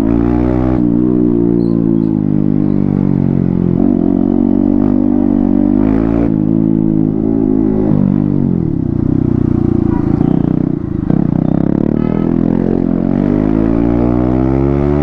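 Yamaha MT-15's 155 cc single-cylinder engine running with the silencer removed: loud open exhaust, the pitch rising and falling with the throttle. There is a clear drop in revs about eight and a half seconds in before it picks up again.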